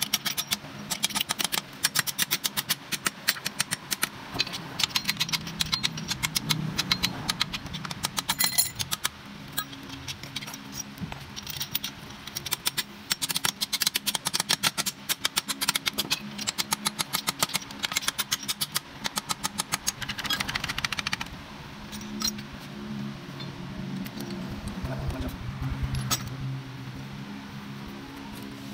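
Ratchet wrench clicking rapidly in long runs as bolts are undone on the bottom end of a Hyundai D4BX diesel engine block, thinning to scattered metal clinks in the last several seconds. A steady low hum runs underneath.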